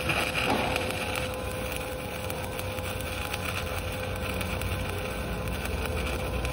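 Stick-welding (SMAW) arc crackling steadily as a 2.6 mm LB52-18 low-hydrogen electrode burns in a vertical fill pass at about 100–120 A.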